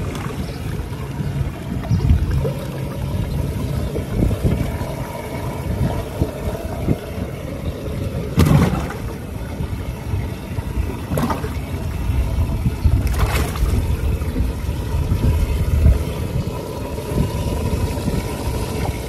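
Water sloshing and trickling over a low steady rumble, with three short sharp knocks or splashes about eight, eleven and thirteen seconds in.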